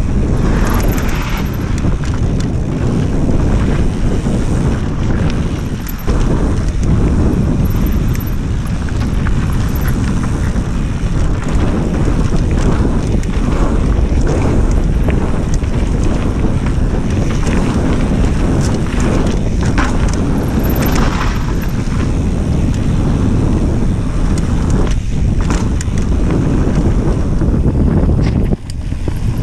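Wind rushing over an action camera's microphone as a mountain bike descends a dirt trail at speed, with tyres rolling on dirt and frequent knocks and rattles from the bike over bumps.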